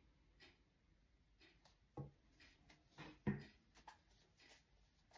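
Near silence: room tone, with a few faint short taps, the clearest about two seconds and three seconds in.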